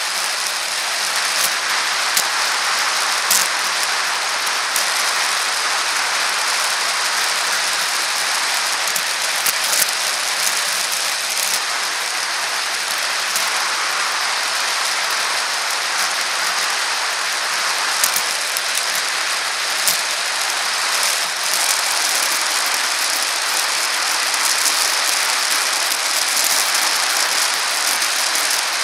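Steady hiss of a bicycle rolling along an asphalt path, as picked up by a camera mounted on the moving bike, with scattered light clicks and rattles.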